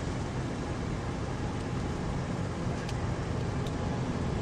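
Steady low roar of a violent F5 wedge tornado.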